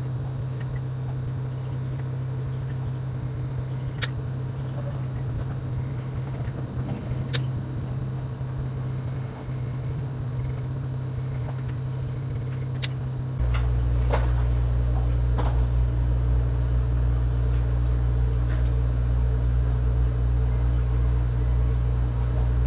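A steady low hum, which grows louder about thirteen seconds in, with a handful of sharp clicks from a caulking gun's trigger and ratchet as silicone sealant is run along the glass edges of an aquarium tank.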